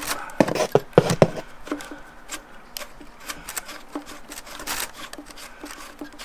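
Metal fitting of a braided fuel line being handled and threaded onto a fuel rail adapter: a few sharp clicks and knocks about half a second to a second and a half in, then light ticking and rubbing of the parts.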